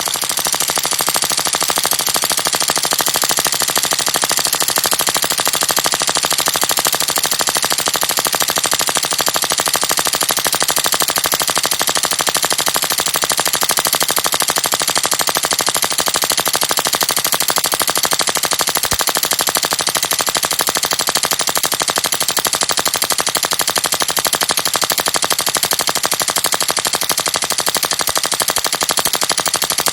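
Tokyo Marui Glock 18C airsoft pistol with a metal slide dry firing on full auto, with no BBs loaded: a loud, continuous rapid clatter of the action cycling, starting abruptly.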